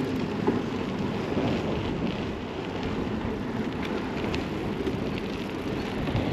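Strong wind buffeting the microphone, a steady low rumbling rush.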